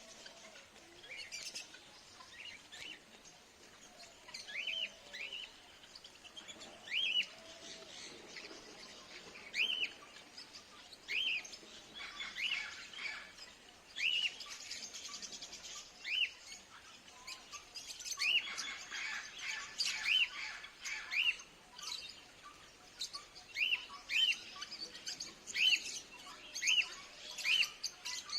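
Birds calling. One bird repeats a short chirp that rises and falls, at first every second or two and more often near the end. Other birds chatter and twitter higher and more faintly behind it.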